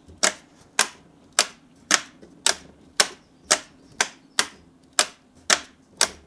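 Metal toggle switches flicked by hand in quick succession, one sharp click about every half second. The clicks are the coils of a DIY brushless motor being commutated by hand to step its magnet rotor round.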